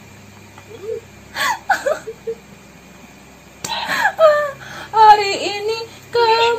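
A young woman's voice in short bursts of laughter and playful whimpering, with quiet pauses between; near the end it turns into drawn-out, wavering whining sounds.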